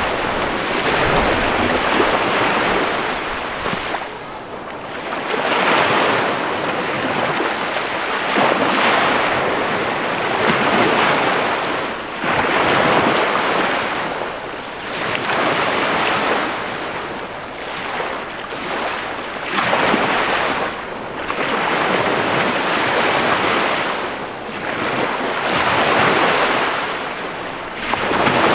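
Small waves on the Chesapeake Bay shore breaking and washing up onto sand, a steady rushing hiss that swells and fades every two to three seconds.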